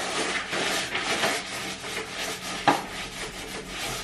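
Paintbrush brushing thick white matt emulsion onto a wall: quick, scratchy back-and-forth strokes, several a second, with one sharp knock about two and a half seconds in.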